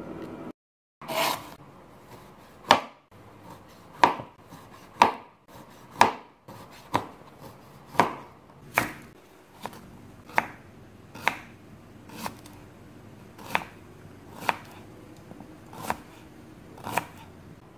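Kitchen knife slicing vegetables, a cucumber and then an onion, on a plastic cutting board: single cuts at about one a second, each ending in a sharp knock of the blade on the board. The cutting starts about a second in, after a brief gap.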